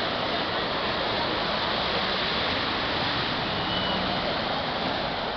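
Steady rush of water as cars drive through a flooded street, their tyres throwing up spray.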